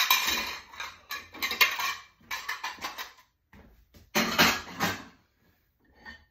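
Metal cutlery clattering and clinking as it is dropped into a kitchen drawer's cutlery tray, in several quick bursts, the last loud one about four seconds in, then it stops.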